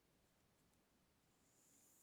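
Near silence, with a faint rustle of paper being handled and folded near the end.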